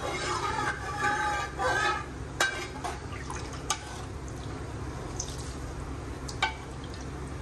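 Spoonfuls of mutton stock (yakhni) poured from a steel ladle onto meat and rice in a pot, trickling and splashing in the first two seconds. Then a few light clinks of the steel ladle against the small pan.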